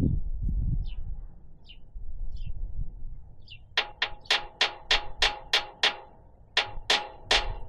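Hammer striking metal: about eleven sharp, ringing blows at roughly three a second, with a brief pause before the last three. Faint bird chirps come before the blows.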